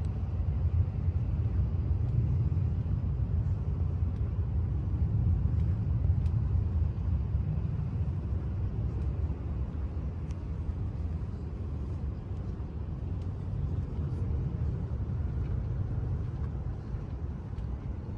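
Outdoor urban ambience dominated by a steady low rumble, a little louder in the first half and easing slightly towards the end.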